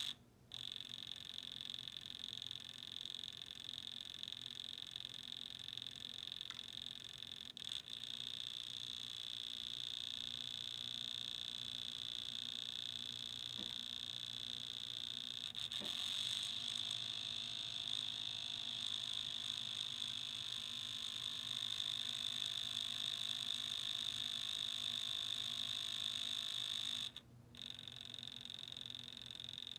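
Dual CS 5000 turntable making a fast, steady clicking noise, a fault of unknown cause that has newly started. It breaks off for a moment near the end, then resumes.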